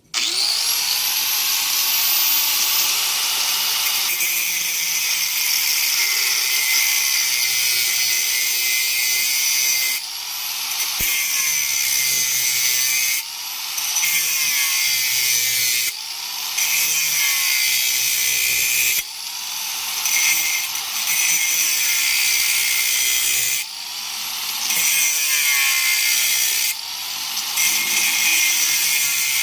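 Angle grinder with a cutting disc switched on and cutting metal. It spins up at the start, then runs with a steady harsh hiss. Half a dozen times the sound briefly drops and then climbs back up in pitch.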